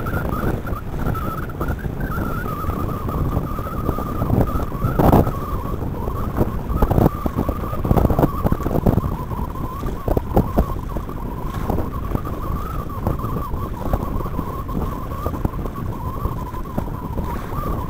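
Wind buffeting the microphone and water rushing past the hulls of a Corsair trimaran sailing fast through choppy water, with a few louder splashes or slaps against the hull. A thin, slightly wavering high hum runs underneath.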